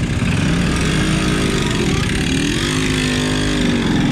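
A motor vehicle's engine running close by, its pitch rising and falling twice, over steady street noise.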